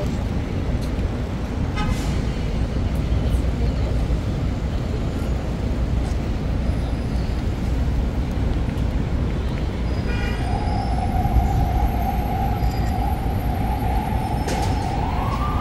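Steady city traffic noise. About ten seconds in, an emergency vehicle's siren starts on one held note, then rises in pitch near the end.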